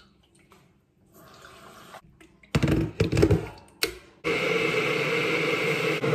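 Kitchenware clattering and knocking on a wooden counter as it is handled. About four seconds in, a kitchen tap is turned on and water runs steadily into the sink.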